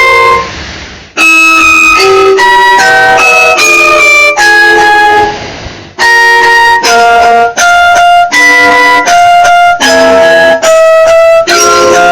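Emergency alert melody: a tune of held, reedy chords, a new chord about every half second. It dies away twice, about a second in and again around five seconds in, each time starting up again.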